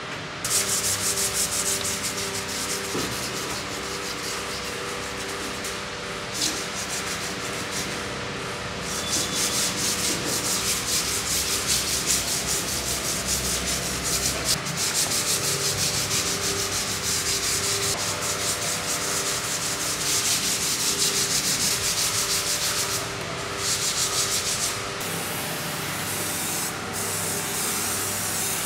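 Sandpaper rubbed by hand over dried body filler on a plastic motorcycle fairing panel, in quick back-and-forth strokes. Near the end an aerosol spray can hisses as paint or primer goes on.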